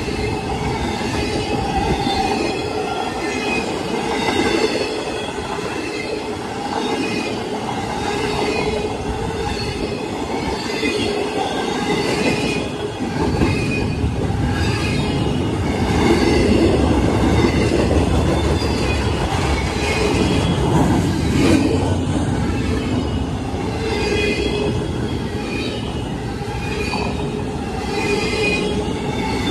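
CSX intermodal freight train's container and trailer cars rolling past: a steady rumble and clatter of steel wheels on rail, with high squealing from the wheels. A heavier low rumble comes in about thirteen seconds in.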